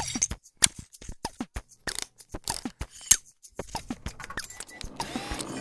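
Sound effects for an animated title: an irregular run of short clicks and ticks, some with a quick falling pitch, and a brief swish near the end.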